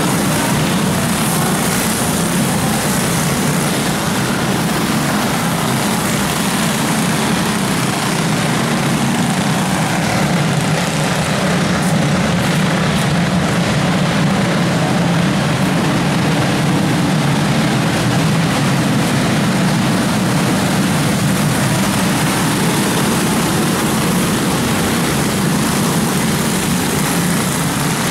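Engines of a pack of racing go-karts running together, a steady, unbroken drone.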